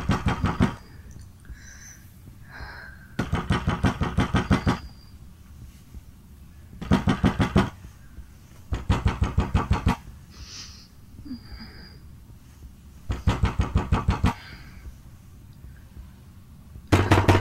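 Fist pounding on a door in rapid volleys of banging, each about a second long, repeated six times with pauses of a few seconds between.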